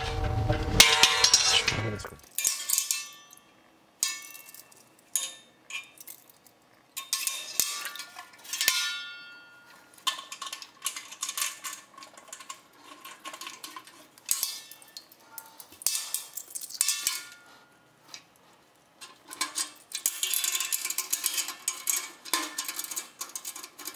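Stainless steel fittings, a clamp and a hose being fitted by hand inside a stainless steel fermenter: irregular metallic clinks and clanks, some ringing briefly. The handling is loudest in the first couple of seconds.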